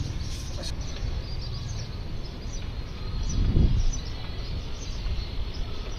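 Steady background noise with a low rumble, faint high chirps like distant birds, and a brief swell in the rumble a little past halfway.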